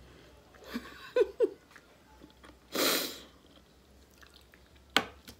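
A woman's short hum-like murmur about a second in, then a loud, breathy exhale close to the microphone about three seconds in, and a single sharp click near the end.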